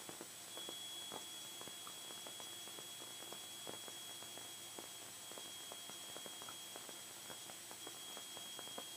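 Faint electrical hiss with a steady high-pitched whine and scattered light crackles: a quiet aircraft intercom/radio audio feed between transmissions, with no engine heard.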